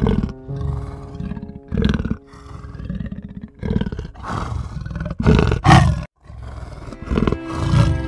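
A big cat growling and roaring in a series of short, rough bursts, over background music with steady held tones.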